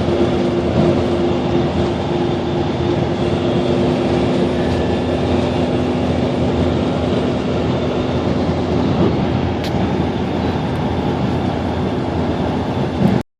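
Steady road and engine noise heard from inside a moving 2004 Toyota Echo, a small 4-cylinder automatic car, with a low steady hum. It cuts off abruptly near the end.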